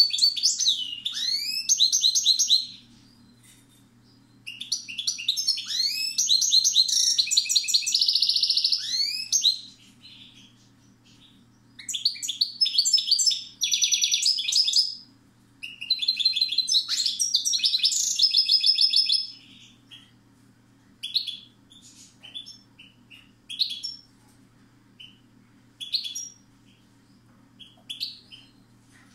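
Caged European goldfinch singing: four long bursts of rapid, high twittering with trills and gliding notes, separated by short pauses. In the last third the bird gives only short single call notes.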